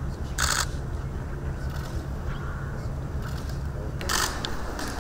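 Camera shutters clicking twice, about half a second in and again near the end, over a low steady rumble.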